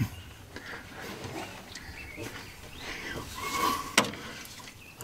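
Faint handling sounds of a wrench working on plumbing fittings overhead, with small knocks and a sharp click about four seconds in.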